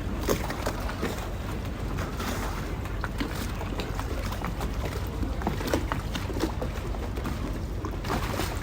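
Venetian canal water lapping and slapping against gondola hulls, with irregular small splashes and knocks over a steady low background.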